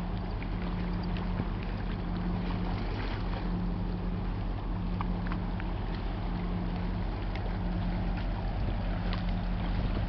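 Boat engine running with a steady low drone at a constant pitch, under a haze of wind and water noise.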